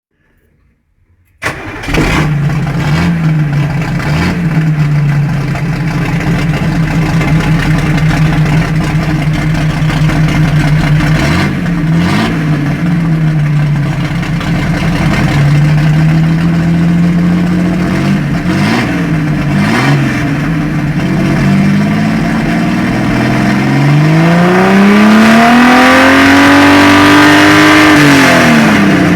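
Tuned Chevrolet 400 engine starting about a second and a half in, then idling through its exhaust with a few quick throttle blips. Near the end a longer rev climbs in pitch and falls back to idle.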